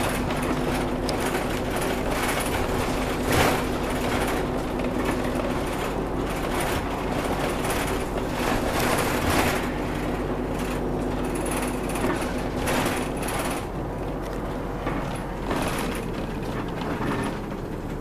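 Inside a moving city bus: the engine drones steadily under road noise, with frequent rattles and knocks from the cabin fittings. The sound eases off somewhat in the last few seconds.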